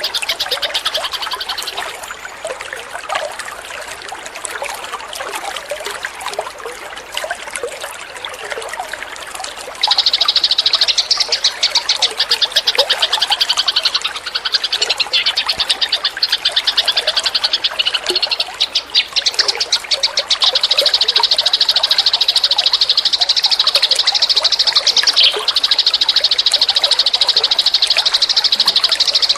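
Eurasian tree sparrows chattering in a dense run of rapid, high chirps, quieter at first and louder and unbroken from about ten seconds in.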